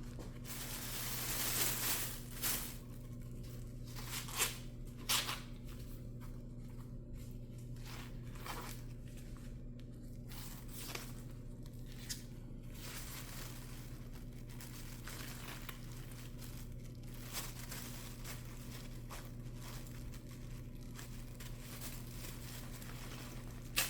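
Husks and silk being torn and peeled off a warmed ear of corn, in irregular rustling, tearing strokes, over a steady low electrical hum.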